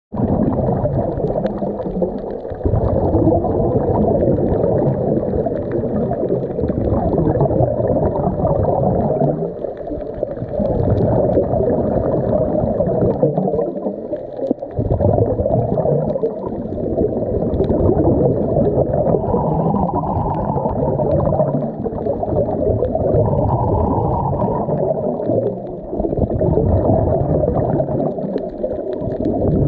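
Scuba diver breathing through a regulator underwater: exhaled bubbles gurgling and rushing in long surges, with short lulls every few seconds, muffled as heard through the submerged camera.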